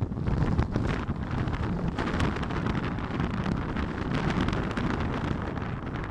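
Strong gusting wind blowing over a microphone fitted with a wind muffler, with heavy surf from big waves underneath.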